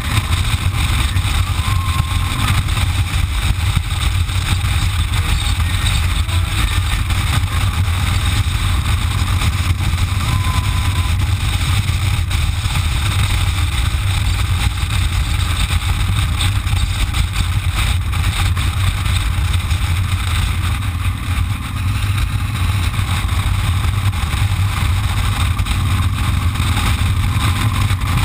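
Motorcycle cruising at a steady road speed: a low steady engine drone mixed with wind and road noise from the rider's own bike, easing off slightly for a moment about two-thirds of the way through.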